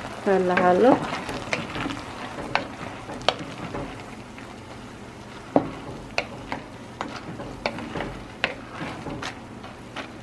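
Whole sunflower seeds boiling in water in a stainless steel pot, stirred with a wooden spoon. A steady bubbling hiss runs under scattered sharp clicks and knocks of the spoon and seeds against the pot, with one louder knock about five and a half seconds in.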